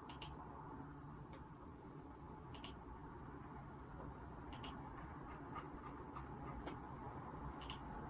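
Sparse computer mouse clicks, each a quick press-and-release, every two seconds or so, with a few fainter keyboard taps in between, over faint steady low room noise from a phone microphone.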